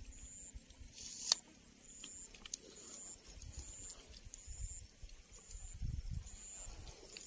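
Insects calling: a steady high buzz with a short high chirp repeating about once a second. A sharp click comes about a second in, and dull low bumps from handling follow in the second half.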